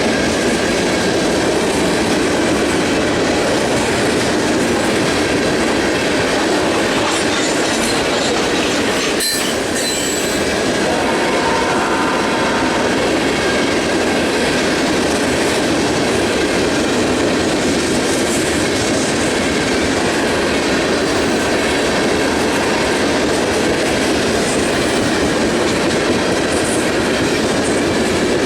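Freight train of molten-sulfur tank cars rolling past at close range, steady wheel-on-rail noise with clattering over rail joints. A faint wheel squeal rises briefly about twelve seconds in.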